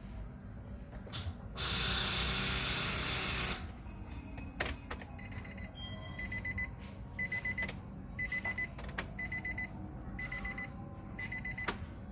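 Electronic warning beeper of a Nissan Grand Livina with a weak battery, sounding short groups of rapid high beeps about once a second: the strange sound that goes with the run-down battery. About two seconds in, a loud two-second burst of hiss comes first.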